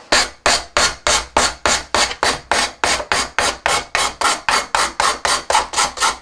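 Hand sanding block rubbed back and forth across the end edge of a fiberglass coupler tube, about four quick scraping strokes a second, squaring off the ridge on the tube's end.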